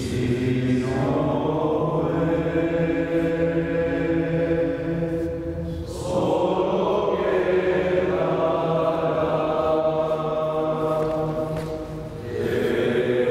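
Slow sung offertory hymn of a Catholic Mass, voices holding long notes in phrases, with a short break between phrases about every six seconds.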